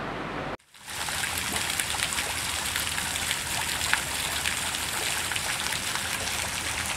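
Garden fountain spray splashing steadily into its pond, starting just under a second in.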